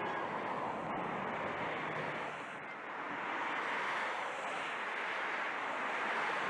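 Steady road and wind noise of a vehicle driving along a highway, with a short dip about two and a half seconds in.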